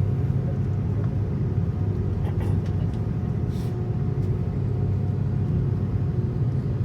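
Steady low rumble of cabin noise inside an Airbus A330-300 airliner, with a faint steady hum over it and a few faint clicks about midway.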